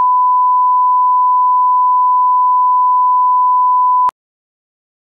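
Steady 1 kHz sine-wave test tone, the reference tone played over a colour test screen, cutting off with a click about four seconds in, followed by silence.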